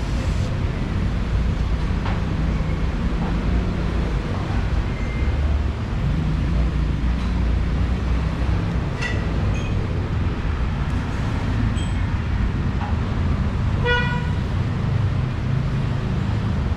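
Steady low rumble of road traffic, with a short horn toot about fourteen seconds in.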